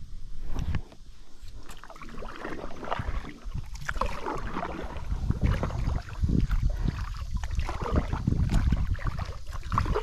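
Kayak being paddled: irregular splashing and sloshing of the paddle in the water, over a steady low rumble.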